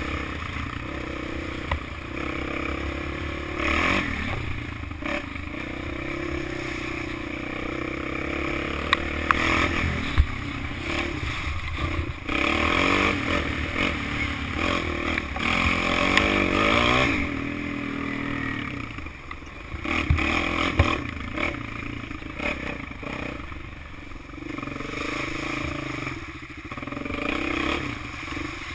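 Kawasaki KFX400 quad's single-cylinder four-stroke engine revving up and down as it rides a rough dirt track, with rattles and knocks from the bumps and wind rumble on the helmet camera.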